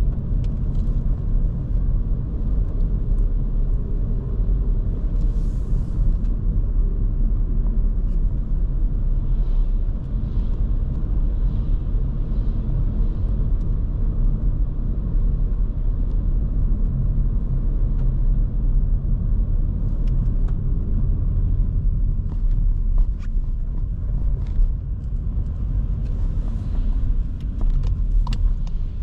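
2023 Škoda Kamiq 1.0 TSI driving at a steady pace, heard from the driver's seat: a continuous low rumble of engine and tyre-on-road noise, with a few light clicks in the second half.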